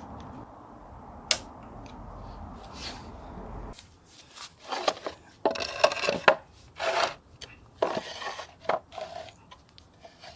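A steady low hum that stops abruptly a little over a third of the way in, with a single click before it. Then a run of irregular short scrapes, rustles and knocks as objects are handled.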